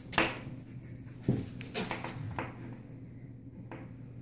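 A toddler scribbling on a whiteboard: a few short irregular knocks and scratches of the pen against the board, over a faint steady low hum.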